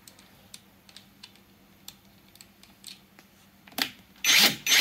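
Small handling clicks of a Makita cordless rivet gun's nozzle head being changed for the largest size, then a loud, short clatter near the end, followed by one more brief one.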